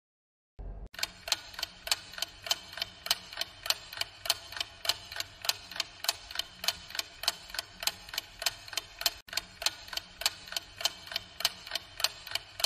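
Countdown-timer clock ticking sound effect: an even, quick series of sharp ticks, starting about a second in after a moment of silence.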